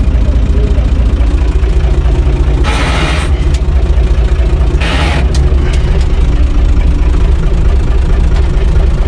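UTB 445 tractor's four-cylinder diesel engine running steadily, heard from inside the cab. Two short bursts of hiss come about three and five seconds in.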